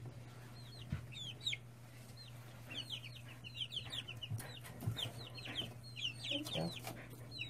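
A brood of two- to three-week-old chicks peeping: many short, falling chirps in quick clusters all through, over a steady low hum, with a few soft knocks.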